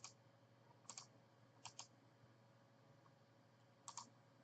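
Faint computer clicks: four quick pairs of clicks spread irregularly over a few seconds, typical of a mouse or keys being pressed at a desk.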